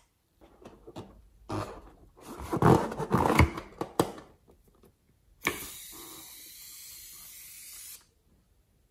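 A rubber balloon being squeezed to push coloured slime out onto a bowl of slime. It makes a run of rough, wet squelching and rasping noises. A steady hiss follows for a couple of seconds and stops suddenly.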